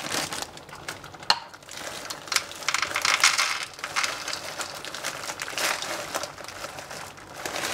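Plastic bag of frozen peas crinkling as it is handled and tipped, with frozen peas pattering into a measuring cup; a sharp click about a second in.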